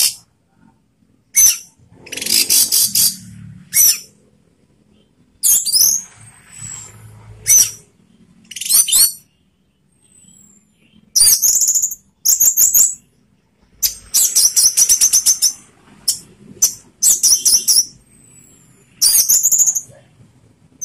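Orange-headed thrush singing a loud, full song in about a dozen short, high-pitched phrases, some quick trills, with brief pauses between them.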